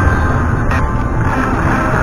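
Electronic game music playing steadily from a video slot machine during its lightning bonus feature.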